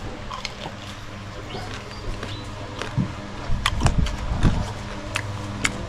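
A man chewing a grilled small bird, bones and all, with scattered crunches and smacks that cluster about three to four and a half seconds in, over a steady low motor hum.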